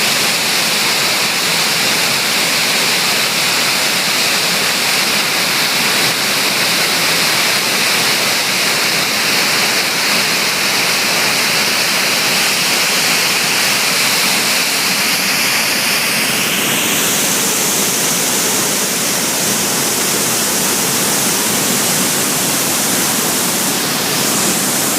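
Waterfall rushing: a loud, steady noise of falling water, its tone shifting slightly about two-thirds of the way through.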